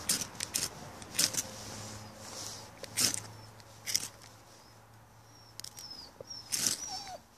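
Ferro rod being struck to throw sparks onto birch-bark tinder: about seven short, sharp scrapes at irregular intervals. Faint bird chirps come in near the end.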